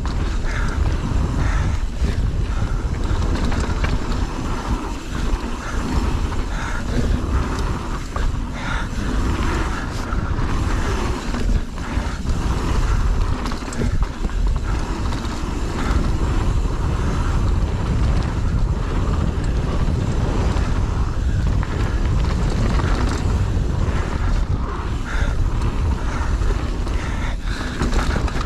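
Mountain bike descending a rough bike-park trail at speed. Wind roars steadily on the microphone, and the bike rattles and knocks irregularly as it runs over roots and rocks.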